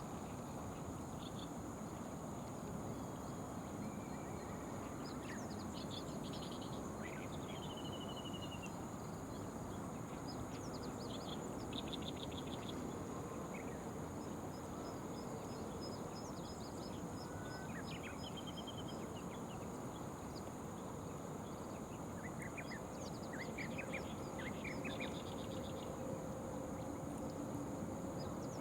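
Riverside ambience: a steady rushing background noise with a constant high insect drone over it, and small birds chirping and trilling in short, scattered bursts.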